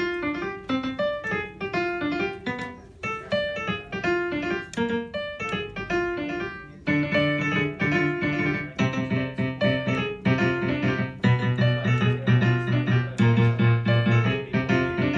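Piano music played in quick runs of struck notes. About halfway through it grows fuller and louder, with a heavy low bass part.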